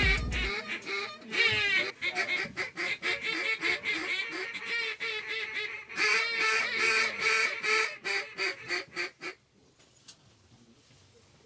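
A flock of waterfowl calling, with many overlapping honks and quacks. The calling is densest about six to eight seconds in and dies away about nine seconds in. The tail of background music cuts off at the very start.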